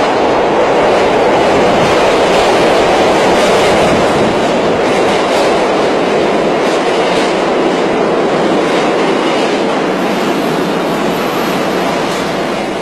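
New York subway train pulling into the station along the platform: a loud, steady rumble of the cars running over the rails, easing off slightly near the end.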